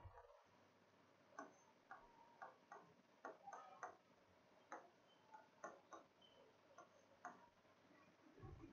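Faint, irregular clicks and taps of a pen writing on an interactive whiteboard screen, about one to two a second.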